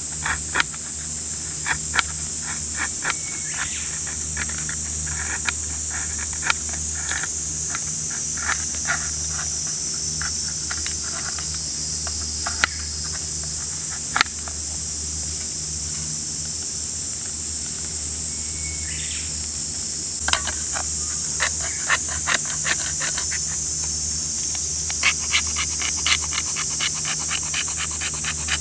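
Steady high-pitched insect chorus, with scattered sharp clicks and snaps throughout that come thicker and faster in the last several seconds.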